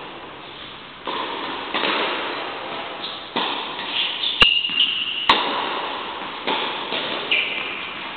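Tennis ball struck by rackets and bouncing in a rally, each knock echoing through a large indoor hall. Two sharp clicks about a second apart in the middle are the loudest events, and a high squeak rings out after the first click and again near the end.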